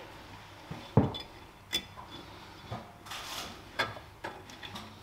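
Brake caliper on a Gen 1 BMW Mini being fitted back over the disc and carrier by hand: scattered metal clinks and knocks, the loudest about a second in, with a brief scrape around three seconds in.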